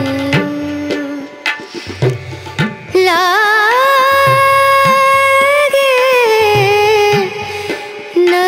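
Indian-style song: a singer holding long notes that waver as they begin, over regular low drum beats. The voice drops out for a moment about a second in, leaving the drums, then comes back on a long held note.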